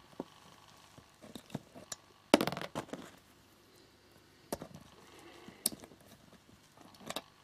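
Scattered small clicks and taps of fingers handling plastic pin headers on a Raspberry Pi circuit board while a female header is fitted over the pins. The loudest is a short rustle about two and a half seconds in.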